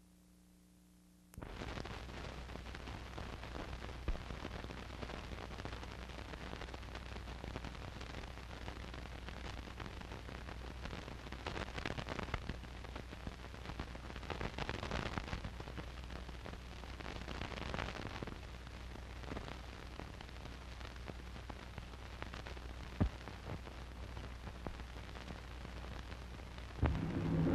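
Steady hiss and crackle of a worn old optical film soundtrack, with a low hum underneath, switching on suddenly about a second in and broken by a couple of sharp pops. Orchestral music starts loudly just before the end.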